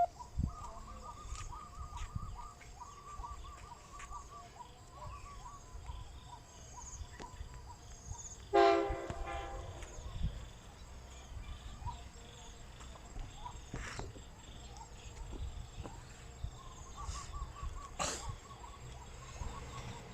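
Train horn sounding once, about a second long, a little over eight seconds in, over a low rumble. Faint runs of chirping come before and after it.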